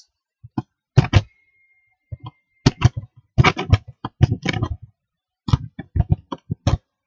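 A run of irregular sharp knocks and clicks in several clusters, thickest from about three to five seconds in. A faint high steady tone sounds for about a second after the first knocks.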